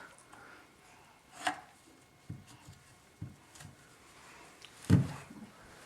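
Toys being set down and knocked against things as a toddler stacks them: a few scattered knocks and thumps, the loudest near the end.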